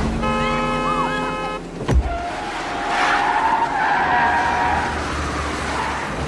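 Car tyres of a 1993 Ford Taurus sedan squealing and skidding in a chase. A steady blaring multi-tone sound with curling squeals lasts for the first second and a half, then a sharp bang comes about two seconds in, followed by a long skid squeal.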